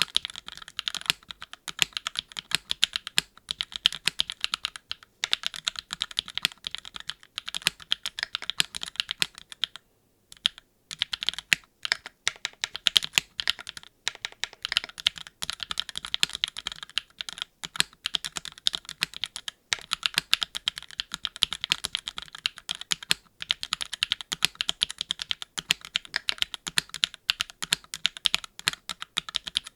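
Typing on a Keycult No.2 TKL custom mechanical keyboard with Gateron x Swagkey Deepping switches and GMK keycaps on an aluminium plate, gasket-mounted with no foam: fast, continuous keystrokes, with a brief pause about ten seconds in.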